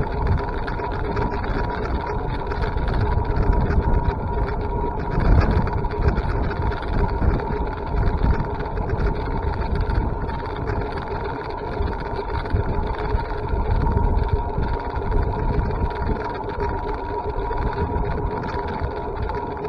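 A vehicle on the move: a steady, uneven low rumble with a constant hum over it.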